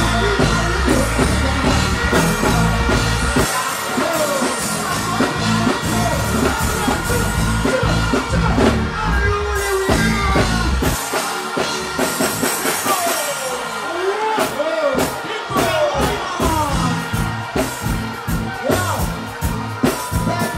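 Live dancehall performance through a concert PA: a deejay chanting into a microphone over a riddim with heavy bass and drums. The bass and drums drop out for a few seconds in the middle while the vocal carries on, then come back.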